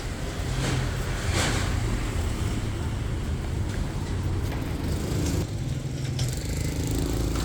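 Road traffic: a steady engine hum with a vehicle whooshing past about one and a half seconds in.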